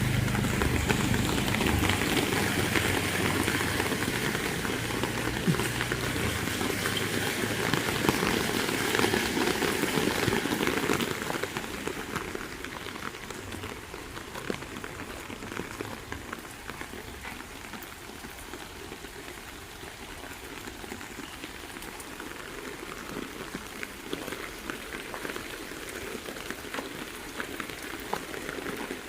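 Heavy rain falling on surfaces: a steady hiss with scattered drop ticks. It is louder at first, with a low rumble underneath, and settles to a quieter, even patter about eleven seconds in.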